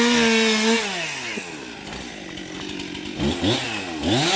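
Two-stroke chainsaw revving: it runs at high speed, drops back toward idle about a second in, then revs up again and holds near the end.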